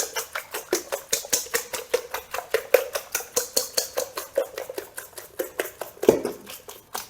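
Potatoes being sliced in a quick, even rhythm of sharp clicks, about five strokes a second, with a heavier thud a little after six seconds.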